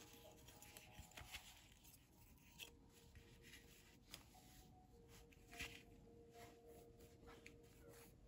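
Near silence, with faint rustling and soft clicks from a handmade fabric junk journal being handled and its cloth pages turned.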